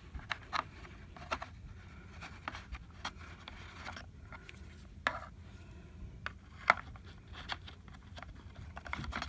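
Scattered light clicks and rustles of plastic parts being handled and fitted back together: the cleaned filter and dustbin of a Robit V7S Pro robot vacuum being reassembled by hand.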